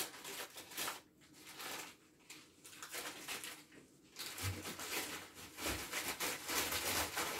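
Paper bag of dried calendula flowers rustling and crinkling in short bursts as it is handled, then from about four and a half seconds a steadier rustle as the dried flowers are poured from the bag into a large glass jar.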